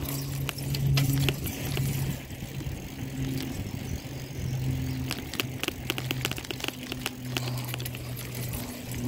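A bicycle ride recorded on a handheld phone: wind and road rumble on the microphone, with rattling clicks from the bike, under a low hum that shifts pitch every second or so.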